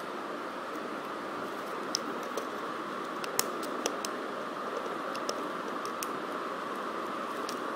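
Scattered small plastic clicks and snaps as hands pry at and pull apart a smashed LG Dynamite phone's housing and circuit board, over a steady hiss.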